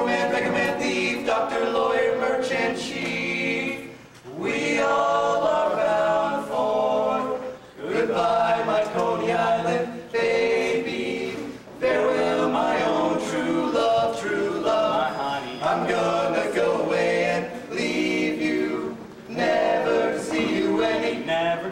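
Male barbershop quartet singing a cappella in four-part close harmony, in phrases a few seconds long with brief breaks for breath between them.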